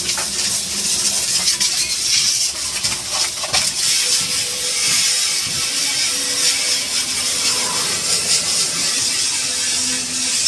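High-pressure water jet hissing steadily as it blasts the underside of a truck's chassis and axles, water spattering off the frame, with a faint steady hum underneath.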